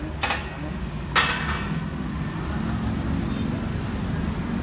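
Motorcycle engine and street traffic rumbling steadily under people talking, with two short sharp noises, the second louder, about a quarter second and just over a second in.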